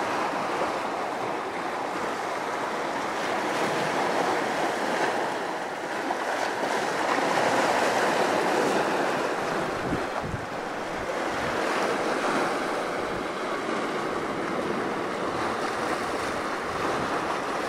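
Sea waves washing onto a rocky shore, a steady rush that swells and ebbs slowly, with wind buffeting the microphone a few times about ten seconds in.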